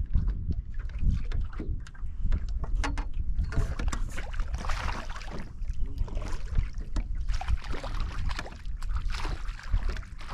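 Wind buffeting the microphone with a constant low rumble, over water lapping and splashing against a fishing boat's hull; the splashing grows livelier from about three and a half seconds in, after a few light clicks.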